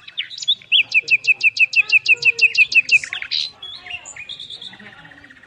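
Songbirds singing: a fast run of about six identical high chirps a second for some two seconds, then assorted shorter chirps and a brief trill near the end.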